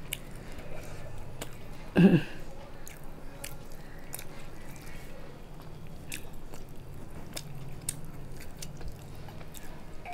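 Close-up eating sounds of a person chewing rice and fried fish, with scattered short mouth clicks and smacks. About two seconds in comes one short, loud throaty vocal sound.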